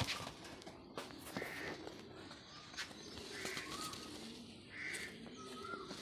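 Fancy pigeons cooing low, with a sharp wing clap at the start and a few more sharp clicks. Another bird gives three short calls in the background.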